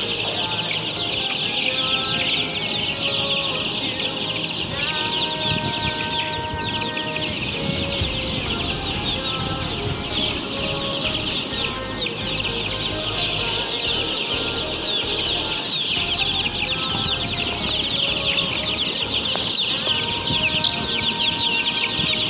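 A brood of chicks peeping continuously, many high cheeps overlapping into a steady chorus.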